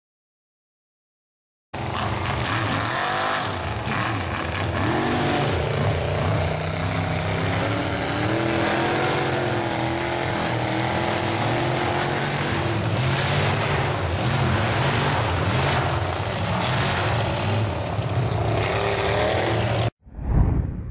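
Engine of a Ford Explorer mud truck revving hard as it churns through a deep mud pit, its pitch rising and falling. The sound cuts in suddenly after a short silence and cuts off sharply near the end.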